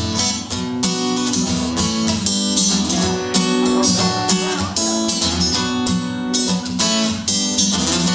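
Acoustic guitar strummed rhythmically as a solo instrumental passage, a few strokes a second over ringing chords.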